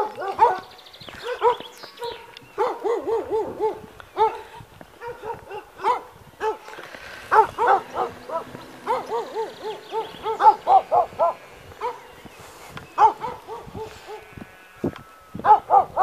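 A dog barking repeatedly in quick runs of short, high yaps, with pauses between the runs.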